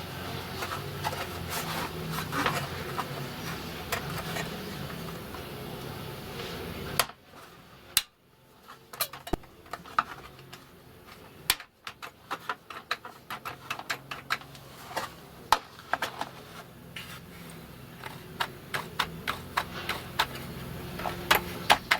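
Clicks and taps of a caravan roof light's plastic parts being handled and snapped onto their tabs, scattered and growing more frequent near the end.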